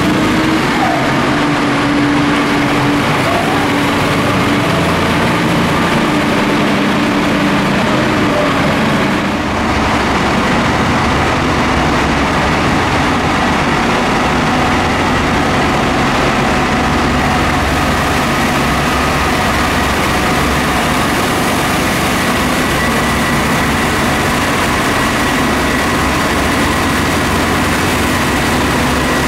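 Subway snow thrower train's diesel engines running steadily under load as its blower throws snow off the tracks. A continuous heavy engine drone under a broad rushing hiss, with a faint steady whine higher up.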